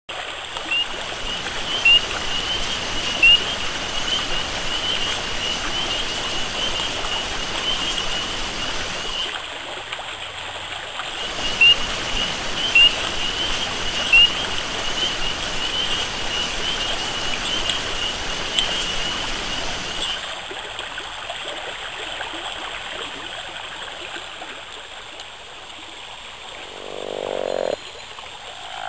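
Shallow creek running over stones, with a continuous high-pitched chirping chorus and a few louder chirps over it; the chirping stops about two-thirds of the way through, leaving quieter running water. A short buzz near the end.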